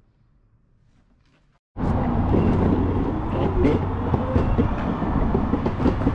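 Near silence, then from about two seconds in the steady, rough rumble of an Exway Flex electric skateboard rolling over pavement while being ridden, with small clicks and knocks from the road surface.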